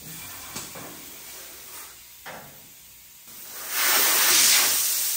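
Air-ride suspension hissing loudly as air passes through the valves to move the bagged rear axle up or down, starting about three seconds in and lasting a couple of seconds, after a couple of faint clicks.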